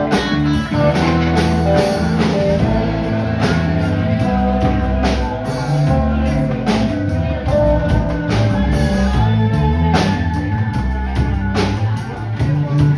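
Live rock band playing: electric guitars over a drum kit, with cymbal hits marking the beat at regular intervals.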